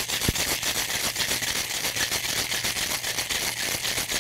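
Ice cubes rattling hard inside a metal cocktail shaker in a fast, even rhythm as a cocktail is shaken with ice.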